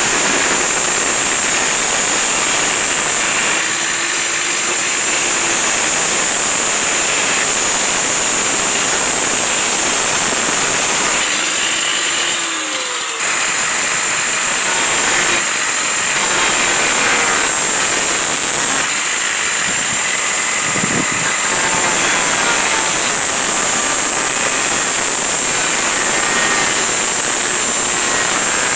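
Electric angle grinder running at full speed, its disc cutting into the steel sill of a 1999 Renault Mégane coupé with a steady high whine, to cut out the damaged section of rocker panel. It eases off briefly about twelve seconds in, then bites again.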